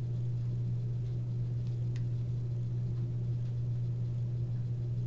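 Steady low background hum with a few faint light ticks; no clear sound from the stirring.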